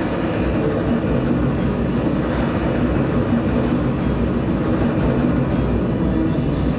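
Stunt motorboat and personal watercraft engines running, a loud steady rumble.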